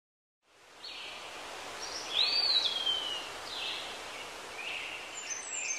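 Outdoor-style ambience laid over the opening: a steady hiss fading in, with short bird-like chirps and one whistle that rises and then slowly falls about two seconds in, the loudest moment.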